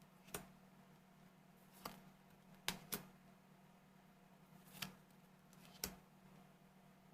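Faint, quiet handling of trading cards: about six short, sharp clicks and taps spread a second or so apart as cards are shuffled and set down, over a faint steady hum.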